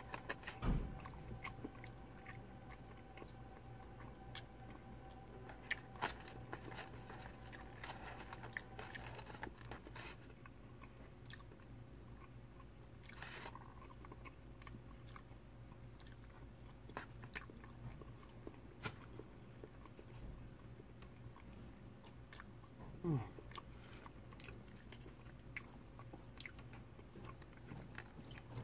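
Close-up chewing of crispy fried fish, with scattered small crunches and crackles as the fried coating is bitten and chewed, and a few louder bites.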